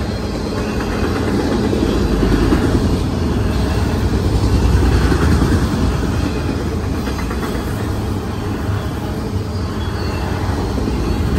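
Autorack freight cars rolling over a steel girder railroad bridge: a steady, loud rumble and rattle of steel wheels on the rails and bridge, swelling a little a few seconds in.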